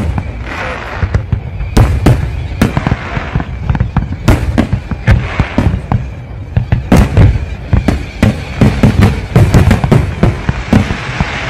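Fireworks display: a rapid, irregular run of loud shell bursts and bangs, with crackling between them.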